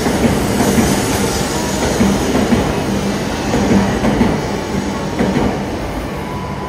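Shinkansen bullet train running past along the platform: a continuous rumble with a steady low hum, easing slightly near the end as the train clears.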